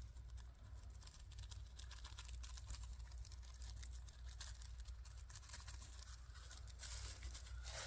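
Faint, irregular crackling sizzle of a seasoned ground-beef patty frying in an oiled pan on a portable propane stove, over a low steady hum.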